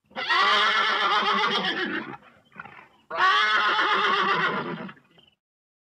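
A horse whinnying twice, each call about two seconds long, with a short, fainter sound between them.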